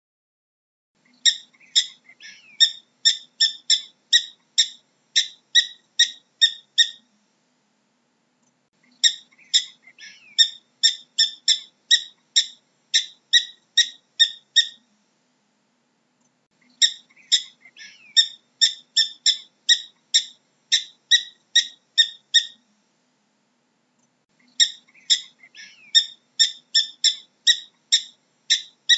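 Prairie dog calling in bouts of sharp, high chirping barks, about three a second. Each bout lasts some six seconds, and the bouts repeat with short pauses between them.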